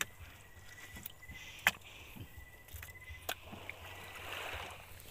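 Sharp knocks and taps on a wet wooden boat deck as freshly caught squid are handled, the loudest about a second and a half in, with a brief wet hiss near the end over a low steady rumble.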